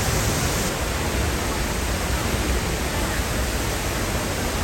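Large waterfall dropping about 75 m into a plunge pool, heard close: a steady, loud rush of falling water.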